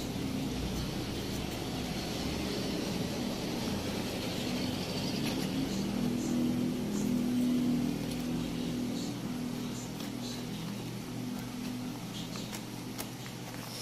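Paper wrapping and a cardboard box being handled, with light crinkles and small taps, over a low droning hum that swells to its loudest about halfway through and then fades.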